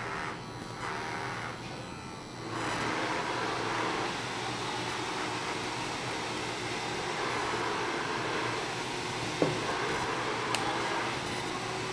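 Cordless hair clipper switched on about two and a half seconds in and running steadily while cutting clipper-over-comb to even out a fade blend, with one sharp click near the end.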